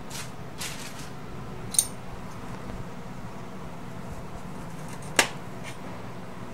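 Square metal ravioli stamp cutter pressed through pasta dough onto the counter: soft scraping, then two sharp clicks, about two seconds in and a louder one about five seconds in, the first with a brief metallic ring. A steady low hum runs underneath.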